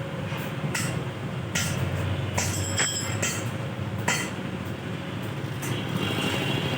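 Steady mechanical noise with sharp metallic clinks and knocks every second or so, like metal pieces being handled and struck in a metalworking shop.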